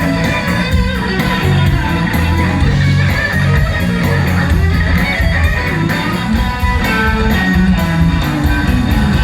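Live blues-rock band playing an instrumental passage, with electric guitar to the fore over bass guitar and a steady cymbal and drum beat.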